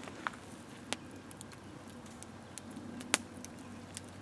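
Small open wood fire crackling, with a few sharp pops, the loudest about three seconds in.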